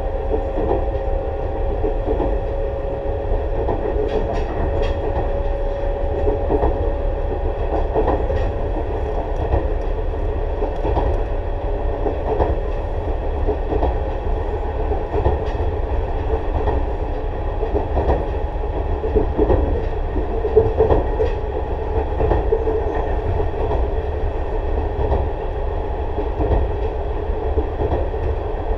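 Tobu 6050 series electric train, motor car MoHa 6169, running between stations: a steady rumble with the hum of its TM-63 traction motors, a tone that drifts slightly in pitch. Scattered clicks come from the wheels over rail joints.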